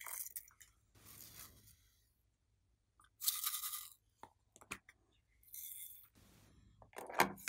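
Hands handling slime add-ins (modelling clay sticks, a glittery butterfly cut-out) over a glass dish. The sound is a series of short crinkles, rustles and light taps, with the loudest handling noise near the end.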